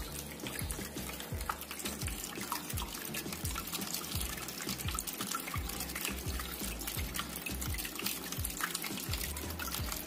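Water trickling and splashing steadily in a small cement waterfall fountain, with many small drips and splashes, over background music with a beat.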